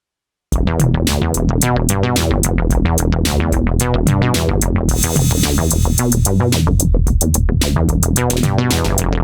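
Novation Peak synthesizer playing a resonant bass patch in a rhythmic sequenced line at 110 bpm over a drum-machine beat, starting suddenly about half a second in. A bright hissy wash, like hi-hats or noise, joins about halfway through.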